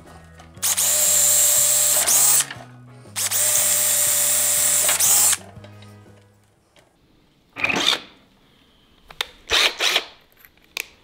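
Power drill boring pilot holes into an oak board: two runs of a second and a half to two seconds each, the motor whining steadily as the bit cuts. A few brief short noises follow near the end.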